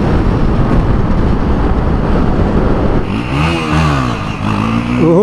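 Motorcycle riding at highway speed, with heavy wind rush on the microphone over the engine. About three seconds in the wind eases and engine revs rise and fall, as a sportbike ahead pulls a wheelie.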